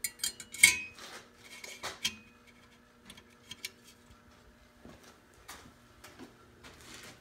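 Light metal clinks and rattles as the metal lifter retainer plate (the 'spider') of a 7.3 IDI diesel is set down over the dog bones and lifters in the block's valley. A quick cluster of clinks comes in the first two seconds, the loudest a little over half a second in, followed by a few scattered clicks.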